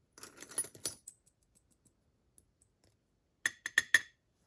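Small metal lock parts from a DORMA DC500 cylinder clattering onto a hard surface as the lock is gutted: a short rattle of clicks at the start, then four sharp, ringing metallic clicks in quick succession near the end.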